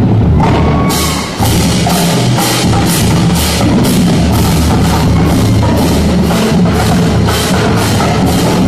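Marching drumline playing a loud cadence on bass drums and tenor drums. After a brief break about a second and a half in, sharp evenly spaced hits come back over the low drum pounding.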